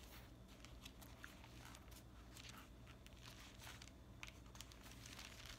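Faint rustling of thin Bible pages being leafed through and turned, with a low steady hum underneath.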